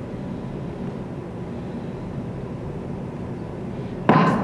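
Steady background hiss of a theatre hall with the performers silent, then about four seconds in a sudden loud cry from a woman on stage.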